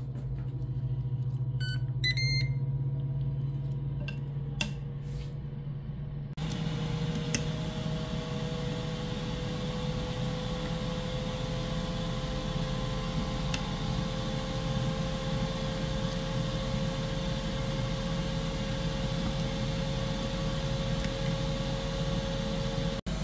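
Ninja Foodi 5-in-1 indoor grill starting to preheat: a few short control-panel beeps about two seconds in over a low hum, then about six seconds in its fan comes on with a steady whoosh and a whine that creeps slowly upward in pitch as it spins up.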